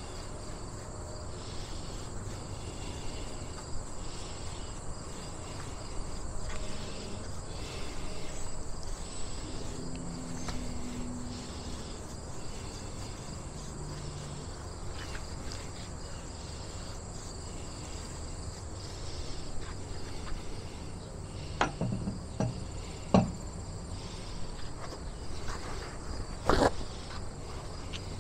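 Insects chirping steadily in a high, pulsing trill, with a few sharp knocks about three-quarters of the way through and one more near the end.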